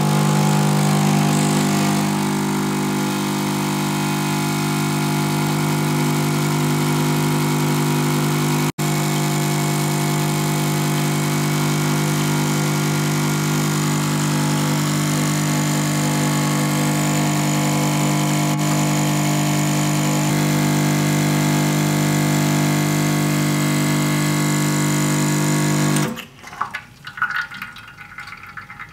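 Lelit Mara E61 espresso machine's vibration pump humming steadily as it pulls a shot, with a momentary break about nine seconds in. It cuts off suddenly after about 26 seconds, leaving faint drips.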